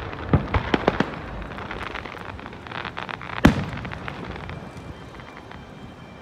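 Aerial firework shells bursting: a quick run of sharp bangs in the first second, a stretch of crackling, then one loud boom about three and a half seconds in that rings on and echoes, after which the crackle thins out.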